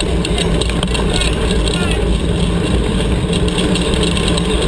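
Steady rumble of mountain-bike tyres rolling on a dirt road, with wind rushing over the bike-mounted camera's microphone.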